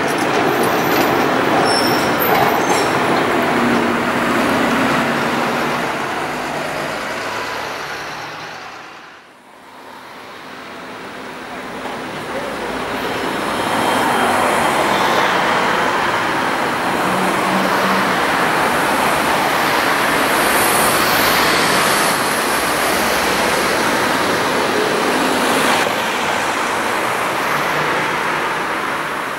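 Athens city trams on street track with road traffic. A tram runs by with a faint high wheel squeal in the first few seconds. The sound fades out about nine seconds in, then a second tram pulls away from a street stop while cars pass.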